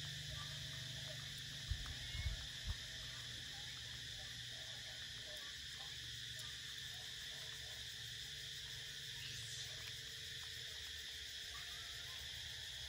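Steady background chirring of insects, with a few low thumps about two seconds in.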